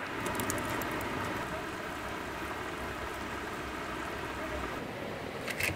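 Steady hiss and crackle of a wood-fired stove boiling down a shallow pan of salt brine, with a couple of sharp pops near the end.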